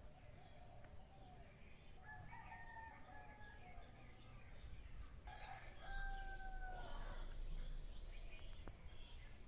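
A rooster crowing twice, faint: a shorter crow about two seconds in, then a longer, held crow that falls slightly in pitch at its end.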